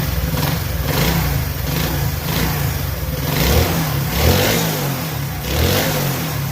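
Honda CD 70's small single-cylinder four-stroke engine running and being revved up and down several times. It runs with a good sound, its earlier tak-tak knock, caused by a loose clutch-hub bolt, gone now that the bolt is tightened.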